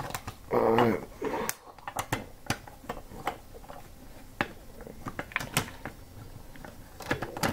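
Plastic Lego pieces clicking and tapping as they are handled and pressed together, a dozen or so sharp clicks at irregular intervals. A brief voice sound comes about half a second in.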